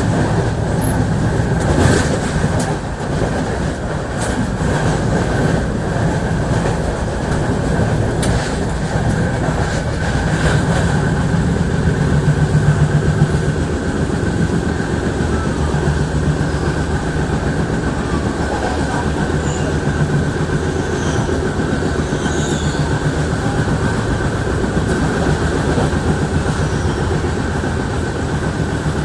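Train running steadily: a continuous rumble with a few sharp clicks in the first ten seconds or so.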